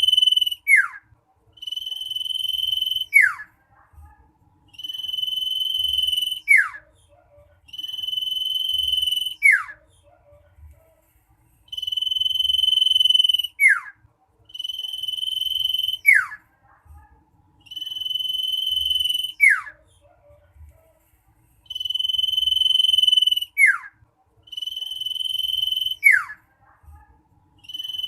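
Common iora (cipoh) singing its loud, insistent song over and over: each phrase is a long steady high whistle ending in a quick note that slides sharply down, repeated about every two and a half to three seconds.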